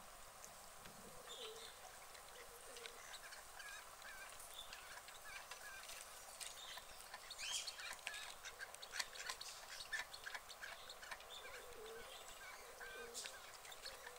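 Domestic white ducks making faint honking calls, mixed with scattered short clicks, more of them in the second half.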